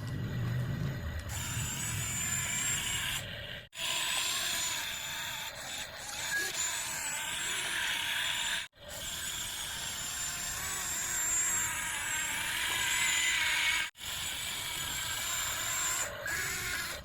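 Small electric motors and plastic gearboxes of toy RC construction vehicles whirring steadily, cut off briefly three times.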